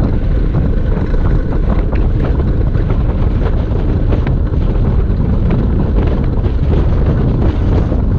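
Heavy wind buffeting the microphone, with steady rolling rumble from an engineless gravity race car coasting downhill at speed. Small rattles and ticks come through now and then.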